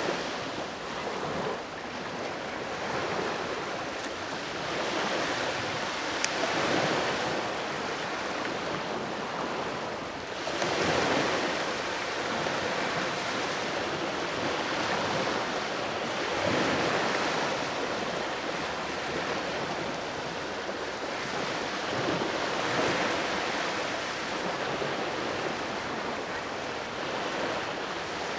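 Sea waves breaking and washing on the shore, the surf swelling and fading every few seconds.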